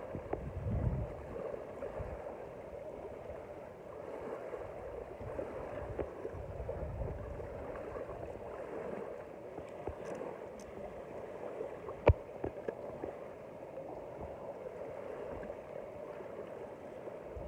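Lake water lapping and gurgling at the shoreline, with a few low rumbles now and then and one sharp click about twelve seconds in.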